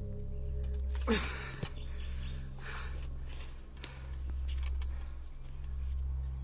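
Low, steady droning background music holding a few sustained tones. About a second in, a short sound falls in pitch, and a few faint knocks come later.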